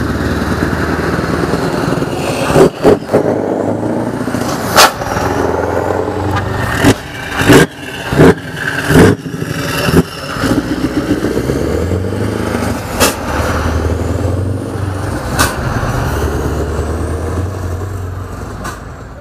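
Scania R500's V8 engine running through loud exhaust pipes, a deep steady exhaust note, broken by a dozen sharp loud cracks, several close together between about seven and ten seconds in.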